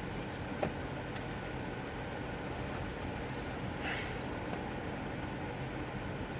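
Ford EcoSport 1.0 petrol three-cylinder engine idling steadily with a misfire in cylinder 1. Two short high electronic beeps sound about a second apart near the middle.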